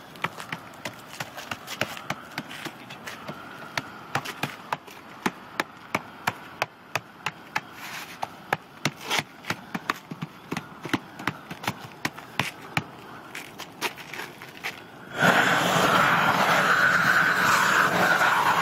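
Propane roofing torch heating torch-down roofing membrane, with many sharp, irregular crackles and pops over a low steady hiss. About fifteen seconds in, the torch opens up into a loud, steady rush.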